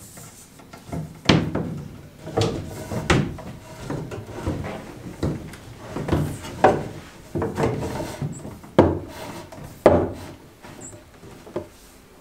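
Irregular knocks and rubbing as plastic-sheathed Romex electrical cable is pulled and worked through wooden stud framing, with a few sharper knocks against the wood.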